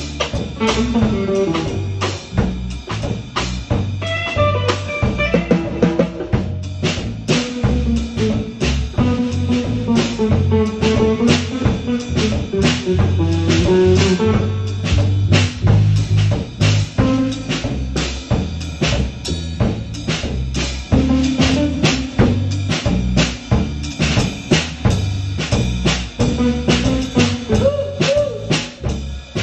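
A band playing music: a drum kit with kick, snare and rimshot hits keeps a dense steady beat under a bass line and a wandering melody.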